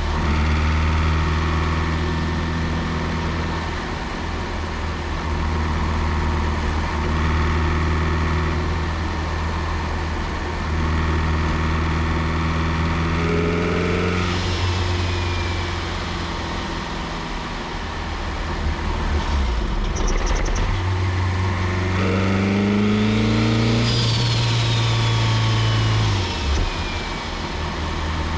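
Turbocharged Honda B16 four-cylinder running at low revs, then twice rising in pitch as it accelerates. Each time the throttle is released, a high turbo whistle falls away as the GTX3582 spools down; the second, near the end, is the longer.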